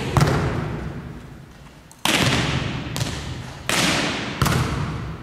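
A volleyball being struck hard five times, each sharp smack trailing off in a long echo around a large gymnasium.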